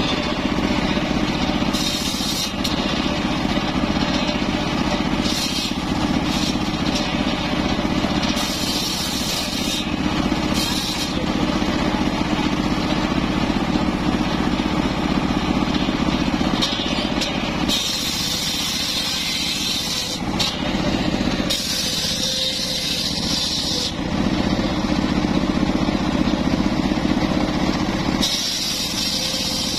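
Homemade engine-driven circular saw bench running steadily, its blade ripping mahogany boards in repeated spells of high hissing cutting noise, each a second to a few seconds long.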